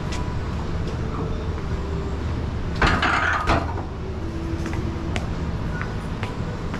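Gym background: a steady low hum with scattered sharp knocks, and one loud clatter lasting just under a second about three seconds in.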